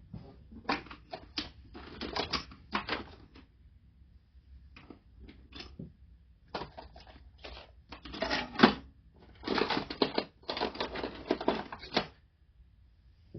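Small metal hand tools clicking and scraping against a lawnmower carburetor while prying at the needle valve seat, in irregular runs of rapid taps with short pauses and one sharper click about two-thirds of the way through.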